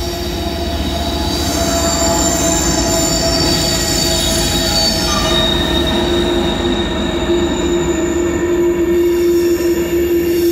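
Passing train, its wheels squealing in several steady high tones over a low rumble; one steady tone grows louder from about six seconds in.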